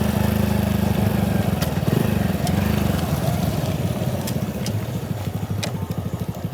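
Motorcycle engine running, its beat slowing to separate, distinct firing pulses and easing off in the second half as the bike slows down. A few sharp ticks are heard over it.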